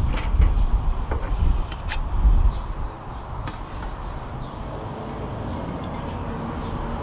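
Wind buffeting the microphone with a few light metal clicks as the fuel container and the stainless tin are handled, then methylated spirits trickling steadily into a small stainless steel condiment pot.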